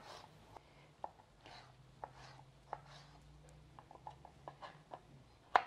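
Kitchen knife dicing a tomato on a wooden cutting board: light, scattered taps of the blade on the board, coming faster in the second half, with one louder tap near the end.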